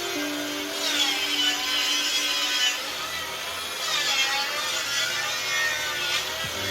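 Power saw cutting wood, its motor whine dipping under load and recovering twice, over background music.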